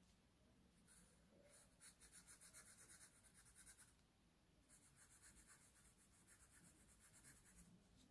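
Faint scratching of a Sharpie marker tip on watercolour paper in quick short strokes, in two spells of about three seconds each with a brief pause between.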